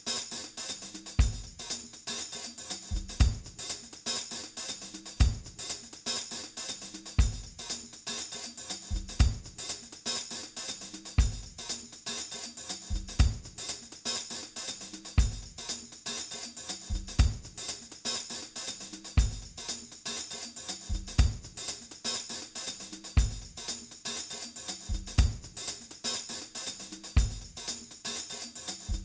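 Background music under the end credits: a drum-led instrumental with busy hi-hats and cymbals over a steady kick drum that thumps about once a second, often in pairs.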